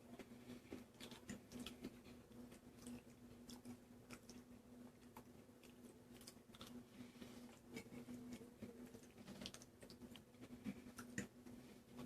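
A person chewing a mouthful of red-sauce penne pasta: faint, irregular small clicks and squelches of chewing, over a steady low hum.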